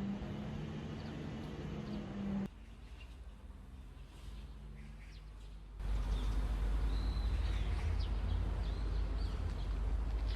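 Birds chirping in short calls over a loud, steady low rumble. Earlier, a steady hum breaks off abruptly about two and a half seconds in, and the sound changes sharply again about six seconds in.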